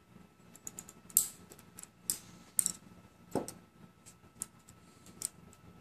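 Irregular light clicks and ticks from small metal vape coil parts and tools being handled, with a fuller knock a little past three seconds in.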